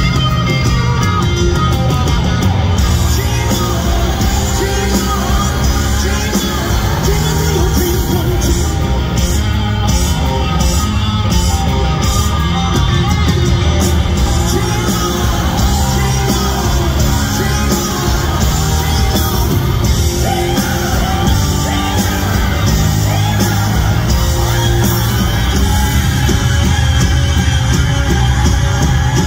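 Rock band playing live through a concert sound system: electric guitar, bass guitar, drums and piano, with loud singing over the top.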